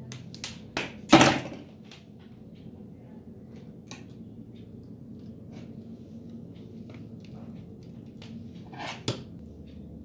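Handling noise from wiring work on a bench: a loud knock about a second in, then scattered light clicks and taps from wires, hand tools and plastic contactor parts, with another knock near the end. A faint steady low hum runs underneath.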